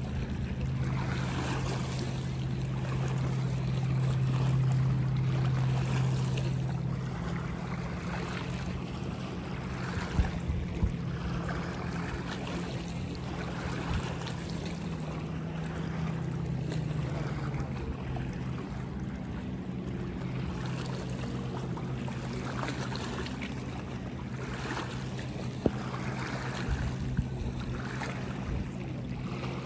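Small waves lapping at the lake shore, a soft wash that swells every second or two, over the steady low drone of a distant motorboat that fades out about halfway through. A few faint clicks.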